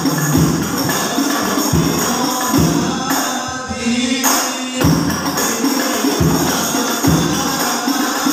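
Hadroh percussion ensemble playing a rhythm: rebana frame drums with a deep bass drum beating under them. About three seconds in the low drum strokes drop out for a moment, then the full ensemble comes back in just before five seconds.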